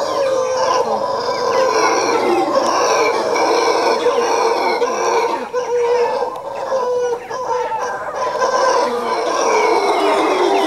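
A troop of mantled howler monkeys howling in a loud, continuous chorus of overlapping calls. It is thought to be a territorial exchange with another troop nearby.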